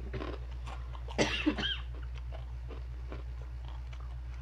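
A person coughs twice in quick succession about a second in, over faint crunching of chicharon (fried pork rinds) being chewed. A steady low hum runs underneath.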